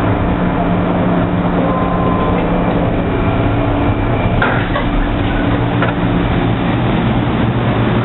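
MTR M-Train metro car running between stations, heard on board. A steady rumble carries a constant low motor hum, with a few sharp wheel clicks about halfway through.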